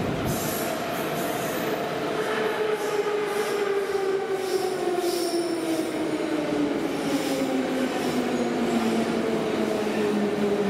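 Metro train pulling into an underground station and braking: its motors whine and fall steadily in pitch as it slows, with high squeals from the wheels and brakes over the first several seconds.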